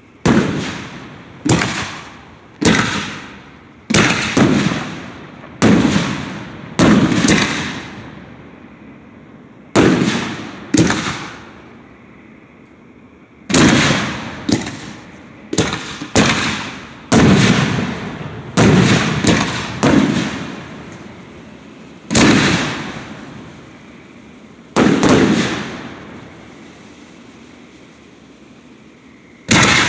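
Aerial firework shells bursting: about twenty sharp booms at uneven spacing, often one to two seconds apart, each trailing off in a rolling echo, with a pause of a few seconds near the end before a last burst.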